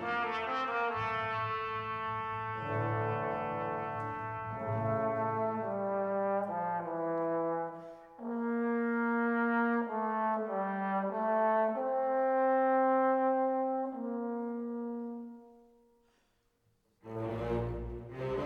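Slow background music of long held instrumental notes, fading out late on; after about a second of silence, louder music starts near the end.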